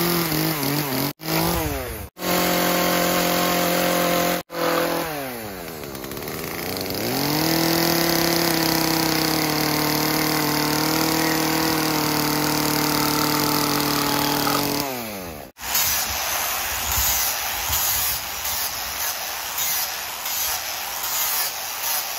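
Poulan Pro chainsaw running at high revs and cutting off the end of a pine board. Its pitch dips and climbs back about five seconds in, then holds steady. From about fifteen seconds in, an angle grinder with a sanding disc grinds the wood with an even, rough noise.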